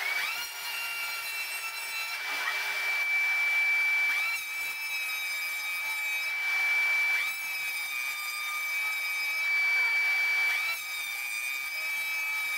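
Electric hand planer running along a door's closing edge, taking light passes of under half a millimetre to cut a leading-edge bevel. A high motor whine dips in pitch and recovers about four times as the cutter block bites into the timber.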